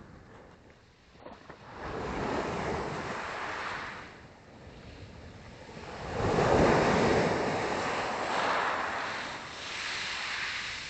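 Small sea waves washing onto the shore: a surge of surf about two seconds in, a bigger one about six seconds in that slowly fades, and a smaller one near the end.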